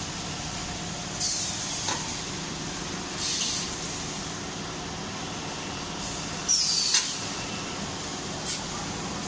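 A DMCJX-502K CNC hydraulic busbar cutting and punching machine running with a steady hum. Three short bursts of hiss come about a second in, at about three and a half seconds, and near seven seconds, and two of them end in a sharp clunk.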